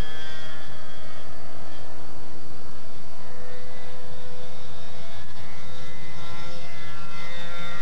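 Super Tigre .90 two-stroke glow engine of a Revolver RC model airplane running steadily in flight, a continuous propeller buzz whose pitch dips slightly near the end as the plane passes.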